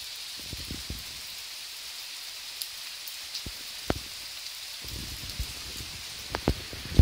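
Steady rain falling on a garden: an even hiss with single drops ticking close by now and then, a few louder ones in the second half. A low rumble comes in near the end.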